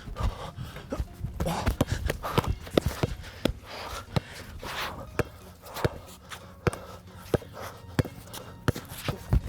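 A basketball being dribbled and played on a court: a series of sharp ball bounces mixed with sneaker footsteps and scuffles.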